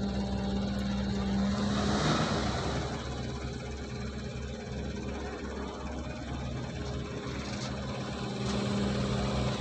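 Wheeled excavator's diesel engine running steadily with a low hum as it digs and loads a dump truck; a short rush of noise about two seconds in.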